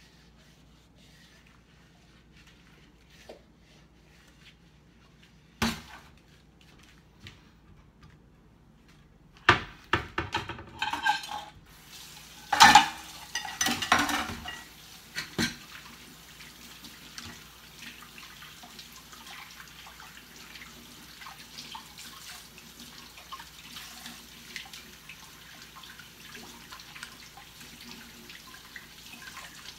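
Dishes being hand-washed at a kitchen sink: a single knock about five seconds in, then a run of loud clattering of dishes and utensils for several seconds, after which the tap runs steadily.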